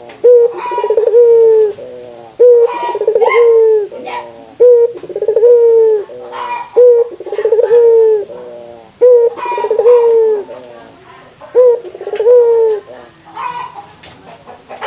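Barbary dove (burung puter) cooing over and over, each coo about a second long with a rapid rolling stutter at its start, repeated about every two seconds. The calling stops a little before the end.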